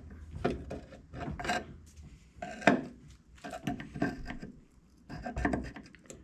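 Hand tools scraping, rubbing and clinking on a car door hinge as the old hinge bushings are worked out, in irregular strokes with a sharp metal clink a little under three seconds in.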